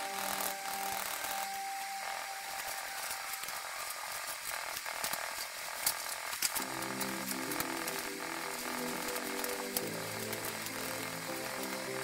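Scratchy rubbing and small ticks of oil pastel and a cotton bud working over paper, over background music that drops out for a few seconds in the middle.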